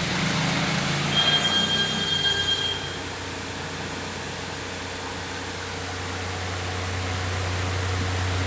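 Electric fan running with a steady rushing noise and a low hum. During the first three seconds a low rumble and a thin high-pitched tone join in, then fade, leaving the fan alone.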